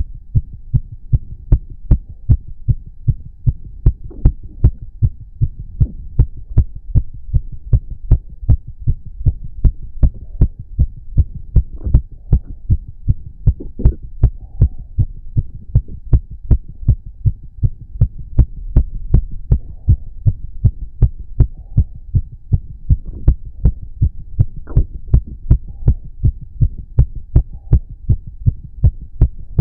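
A man's heart beating fast and evenly after exercise, each beat a low thump, about two beats a second. Short faint stomach gurgles sound now and then between the beats.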